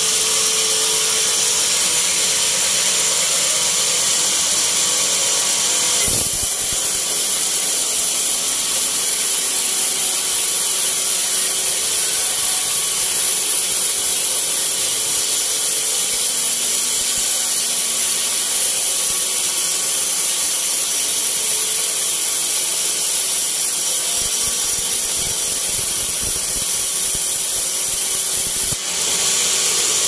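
Band sawmill blade cutting through teak, a steady high-pitched hiss of the running band in the wood, with a short knock about six seconds in.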